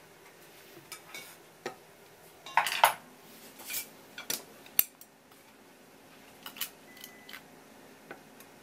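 Light clicks and clinks of kitchen handling on a wooden counter. The loudest is a quick cluster about two and a half to three seconds in, followed by scattered single clicks.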